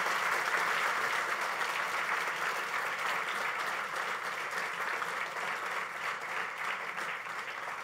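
Audience applauding at the end of a talk, many hands clapping together, slowly dying down.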